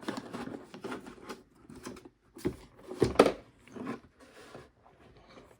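Handling noise from opening a chainsaw's carrying case and taking out its contents: irregular clicks, knocks and rustles, with the loudest knock about three seconds in.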